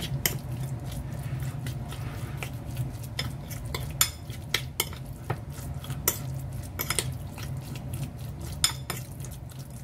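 Metal spoon stirring minced shrimp mixture in a ceramic bowl, with irregular clinks of the spoon against the bowl, the sharpest about four, six and nine seconds in. A steady low hum runs underneath.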